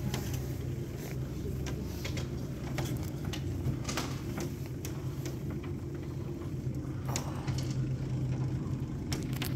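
Modified window-washer cable lift descending: a steady low mechanical hum, with occasional light clicks and knocks from the platform.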